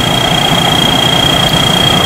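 Sit Charoen Kan Chang tracked rice combine harvester running steadily while unloading grain into a six-wheel truck, with a constant high-pitched whine over the engine.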